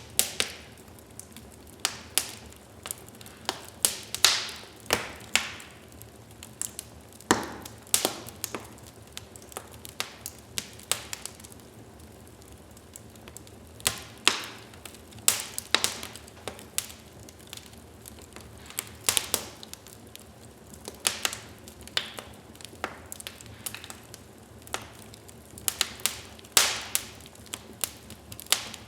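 Wood fire burning in a fireplace, crackling and popping irregularly over a low steady hiss.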